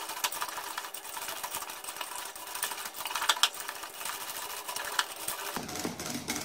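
Metal hand whisk beating partly frozen chocolate ice-cream mixture in a ceramic bowl, a rapid run of light clicks and scrapes of the wires against the bowl. This is the second whipping of the half-set ice cream.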